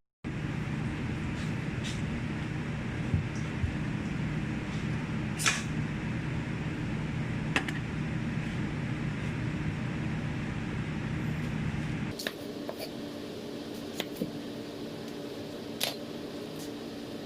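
A steady low hum with a few sharp clicks scattered through it. The hum changes abruptly and becomes quieter about twelve seconds in.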